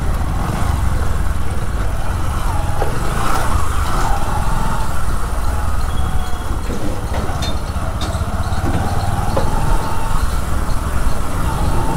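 Motorcycle engine running at low speed while the bike rides along, with a steady low rumble at the rider's position.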